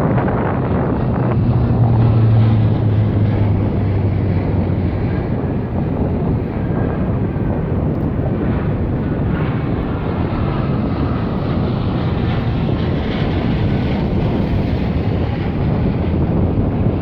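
Aircraft engines rumbling as aircraft pass over, loudest about two seconds in, with wind buffeting the microphone.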